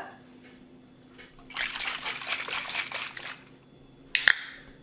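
Maggi seasoning trickling from its bottle into a glass bowl of dark sauce for about two seconds. A single sharp click follows near the end as the bottle is capped.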